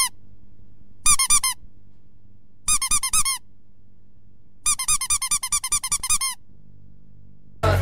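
Rapid high-pitched squeaks, about ten a second, in four bursts: a brief one at the start, then about a second in, near the middle, and a longer run of about a second and a half in the second half.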